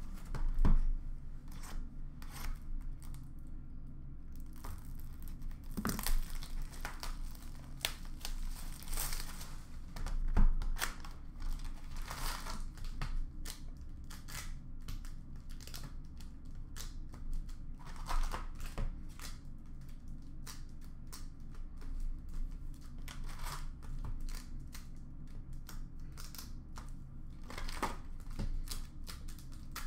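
Hockey card packs being handled and torn open, the wrappers ripping and crinkling in irregular bursts. Two louder dull knocks come about a second in and again about ten seconds in, as the box and packs are handled on the counter.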